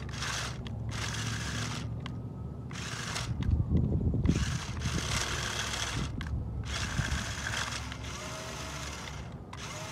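Small electric motor and gearbox of a JJRC Q69 1:18 six-wheel RC crawler truck whining in several on-off bursts as it is throttled over rough mud. A louder low rumble comes about four seconds in.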